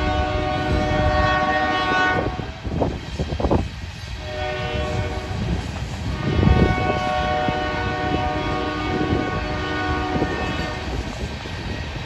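Lead freight locomotive's air horn blowing a multi-note chord in long blasts for a grade crossing. It breaks off about two seconds in and sounds again from about four seconds to about ten seconds, over the low rumble of the train.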